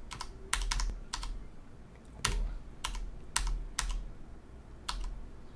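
Computer keyboard keys clicking as single presses at irregular intervals, about ten over five seconds.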